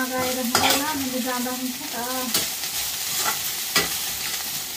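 Small dried sidra fish sizzling as they fry in hot oil in a wok, stirred with a metal spatula that clicks and scrapes against the pan again and again. A steady humming tone sounds over it for the first couple of seconds.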